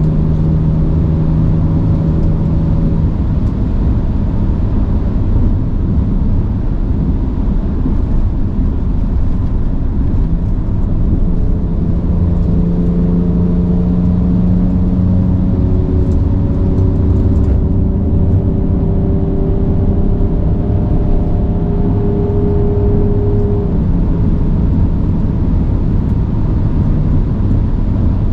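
Ford Ranger Raptor pickup driving in Baja mode, its engine note climbing and falling slowly as it accelerates and eases off, over a steady heavy rumble.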